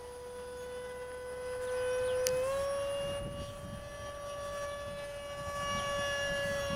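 Small 50 mm electric ducted fan (CS 11B fan and shroud on a stock brushless motor) of an RC F-16 jet giving a steady, siren-like whine. Its pitch steps up slightly about two and a half seconds in as the fan speeds up, just after a single sharp tick.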